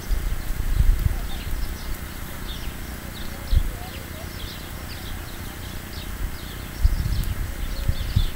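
Outdoor garden ambience: short high chirps repeating irregularly over a steady hiss, with low gusty rumbles on the microphone about a second in, again briefly halfway through, and near the end.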